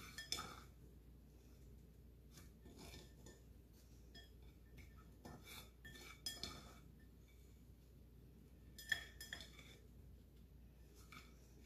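Faint handling sounds of a chicken roll being turned in breadcrumbs in a glass pie dish: soft rustling with scattered light clinks against the dish, the sharpest about nine seconds in.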